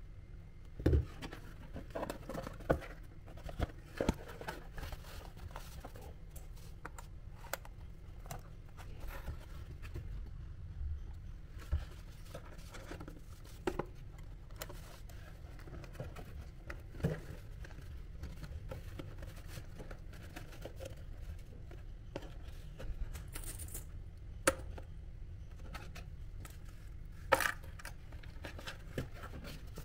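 Cardboard being handled and cut by hand: scattered clicks, scrapes and rustles with an occasional sharper knock, over a steady low hum.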